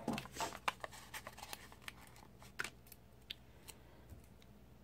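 Faint, irregular paper rustles and small ticks of paper stickers being peeled off a sticker sheet and pressed onto a planner page, busiest in the first second.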